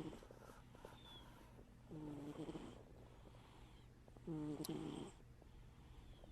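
Domestic cat snoring in its sleep: a short snore about every two and a half seconds, two full ones after the tail of one at the start.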